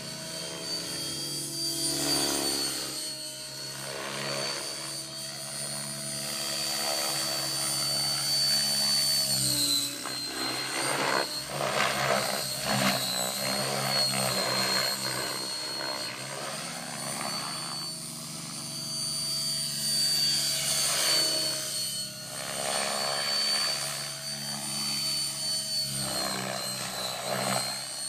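Outrage Fusion 50 radio-controlled helicopter flying 3D aerobatics. Its rotors and power unit give a steady high whine, rising and falling in pitch and swelling and fading in loudness as it manoeuvres and passes.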